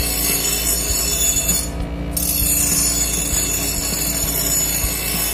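Electric bench grinder running with a steel bolo blade pressed against its wheel: a steady grinding rasp over the motor's hum, letting up briefly about two seconds in before it carries on.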